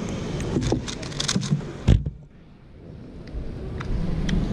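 2x2 puzzle cube being turned fast by hand, a rapid run of small plastic clicks, ending about two seconds in with one loud thump as the solved cube is set down and the timer stopped; a hall murmur follows.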